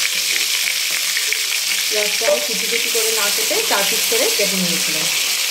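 Chopped onions sizzling steadily in hot oil in a kadhai while a spatula stirs them.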